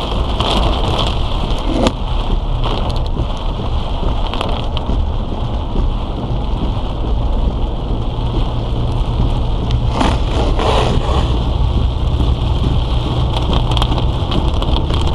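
Heavy rain falling on a moving car, heard from inside, over a steady low rumble of engine and tyres. A couple of brief louder swishes come about ten seconds in.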